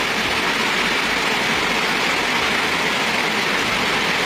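Heavy rain mixed with hail pouring down steadily as a dense, even hiss.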